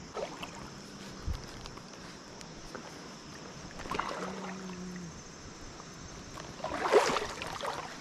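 Water sloshing and swishing around legs wading through a shallow creek, with a louder splash about seven seconds in.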